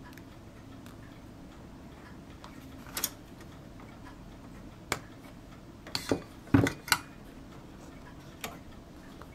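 Scattered small clicks and taps of small plastic kit parts and tools being handled on a workbench, about six over the stretch, the loudest pair a little after the middle, over a faint steady hum.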